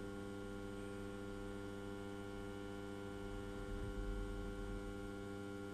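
Steady electrical mains hum with many even overtones from the test bench while the PWM-controlled lamp circuit runs at 220 V, swelling slightly for a moment about four seconds in.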